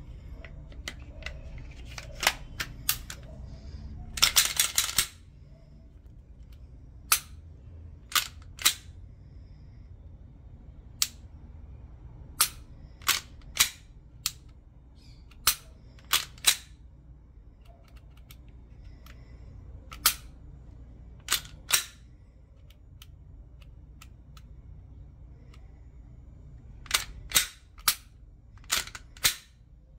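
Sharp metallic clicks of a Glock pistol being worked by hand after a new trigger shoe has been fitted: a half-second rattle about four seconds in, then about twenty single and paired clicks through the rest, from the trigger being dry-fired and the slide cycled to reset it.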